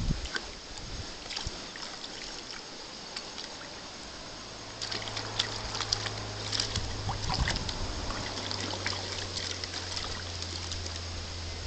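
Water splashing and dripping in a plastic tub as a green monkey paddles and grabs at toys in it with its hands, many small splashes in quick succession, sparse at first and much busier from about five seconds in.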